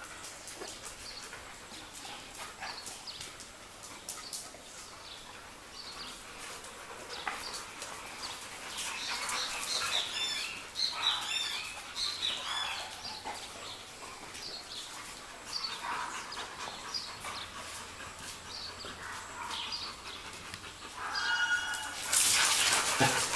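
Pit bull puppies whining and yelping in many short, high cries, thickest from about nine to thirteen seconds in, with scattered light clicks. Near the end a brief pulsing tone sounds and the noise grows loud as the dogs stir.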